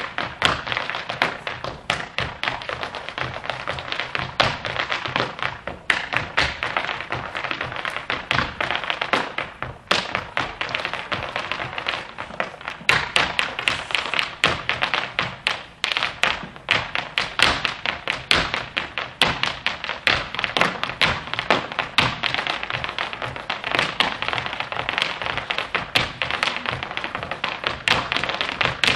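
Irish dance hard shoes beating fast, rhythmic taps and stamps on a stage floor, several dancers together, over a backing dance tune.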